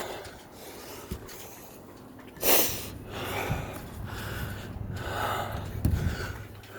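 A person breathing hard, with a sharp snort-like exhale about two and a half seconds in and softer breaths after it, plus a dull knock near the end.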